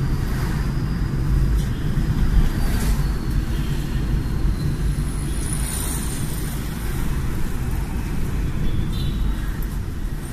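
A car being driven: a steady low rumble of engine and tyre noise heard from inside the cabin, with a brief faint high whine about halfway through.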